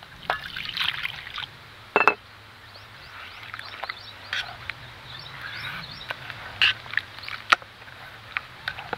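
Water poured from a steel cup into a yellow paste in a stainless steel bowl, with a loud metal clank and brief ring about two seconds in. Then a steel spoon stirs the mixture with a wet sloshing sound and clicks against the bowl many times.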